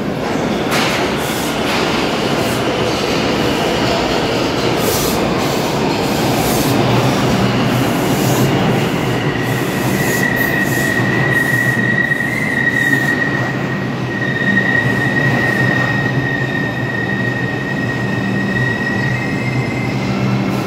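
New York City Subway R142 train pulling into the station along the platform with a loud running rumble and clicks in its first few seconds. From about halfway in, a steady high-pitched squeal rises over it, with a low steady hum underneath.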